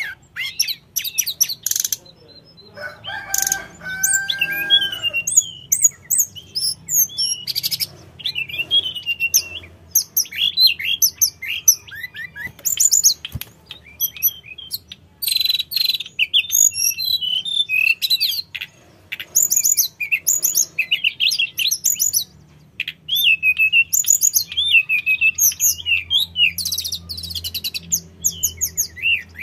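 Hill blue flycatcher singing continuously: fast, varied phrases of high trills, quick sweeping notes and sweet whistles, with short pauses between bursts. About three seconds in, a lower call with held tones sounds briefly, and a single sharp click comes near the middle.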